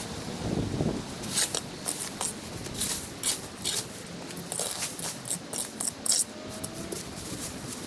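An irregular series of short, sharp scrapes and rustles, about a dozen, over a low steady background noise.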